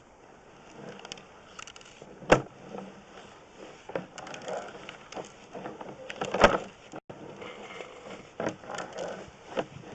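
Sewer inspection camera gear knocking as it works through the pipe: scattered clunks over a faint rustling background, the loudest about two seconds in and again about six seconds in.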